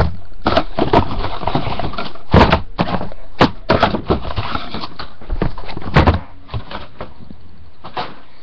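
Crackling plastic wrapping and cardboard packaging being handled and torn open, with frequent sharp snaps and knocks, quieter after about six seconds.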